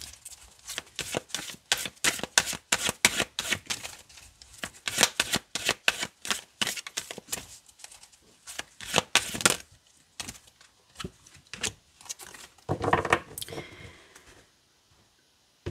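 A deck of oracle cards shuffled by hand: fast, rapid clicking of cards slapping together for about nine and a half seconds. Then a few slower clicks and a short rustle as a card is drawn from the deck.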